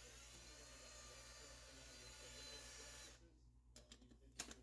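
Small electric motor of a cordless power tool running steadily for about three seconds, then stopping, as it tries to turn a bolt on the pocket quad's wheel.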